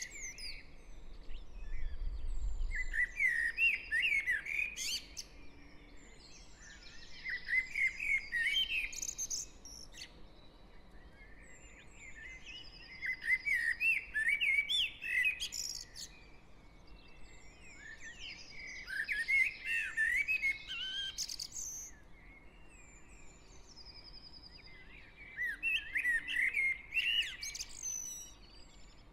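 Garden songbirds in a spring dawn chorus. One bird sings a warbling phrase of two to three seconds about every six seconds, five times, with fainter calls from other birds in between. A faint low traffic hum runs underneath.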